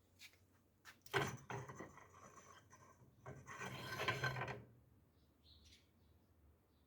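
Two long rasping scrapes, the second louder, after a couple of light clicks.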